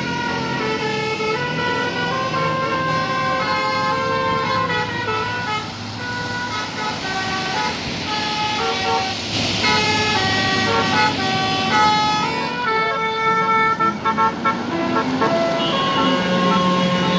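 Tour bus basuri 'telolet' horn playing a melody of held notes that step up and down in pitch.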